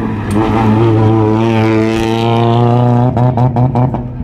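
Rally car engine at full throttle as the car passes on a gravel stage, a loud, steady, slightly rising engine note. About three seconds in, a quick string of sharp pops breaks in, then the sound drops away abruptly.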